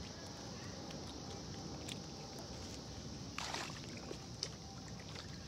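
Low rumble of wind and handling noise, with scattered rustles and clicks from someone moving through brush, and a brief rushing swish about three and a half seconds in.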